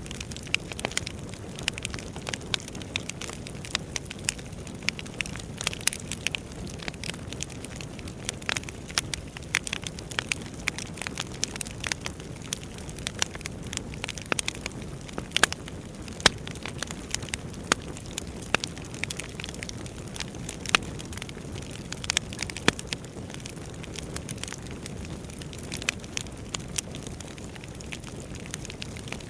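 Firewood burning and crackling: frequent irregular sharp pops and snaps over a steady low rush of the fire.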